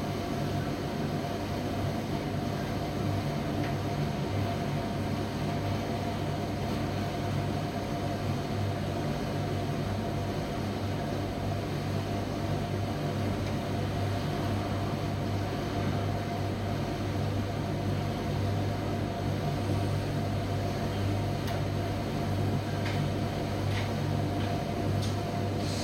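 Commercial Primus tumble dryer running: a steady mechanical hum of its motor and fan over the rush of air, with a few faint clicks near the end.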